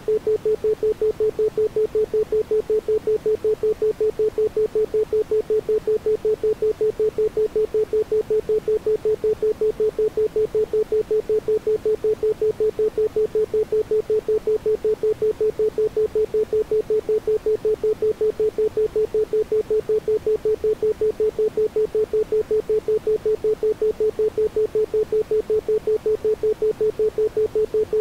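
Isochronic tone: a pure tone at about 432 Hz pulsing evenly on and off several times a second, with no background sound.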